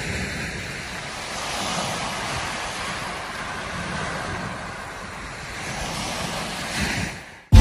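Sea washing onto a shingle beach: a steady rush that swells and eases, stopping abruptly near the end.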